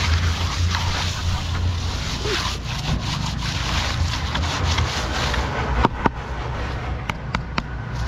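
Sponge float rubbing over the surface of freshly poured concrete, a coarse scraping with each stroke, over a steady low rumble. A few sharp clicks come near the end.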